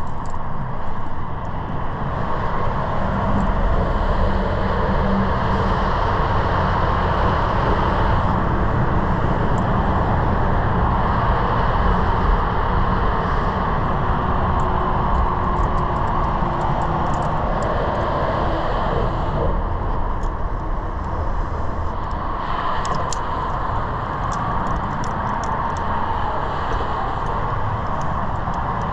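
Steady roar of passing highway traffic, with scattered light clicks in the second half.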